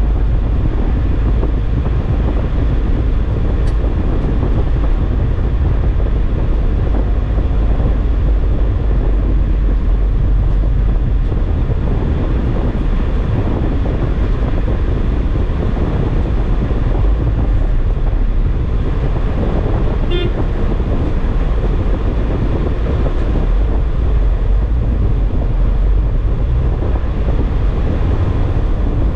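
Steady low rumble of an SUV driving slowly, heard from inside the cabin: engine and tyre noise. About two-thirds of the way through, a car horn gives one short toot.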